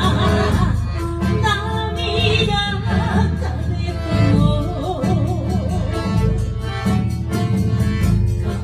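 Live chindon band playing an enka tune: a melody line with wide vibrato over a steady beat of drums and bass.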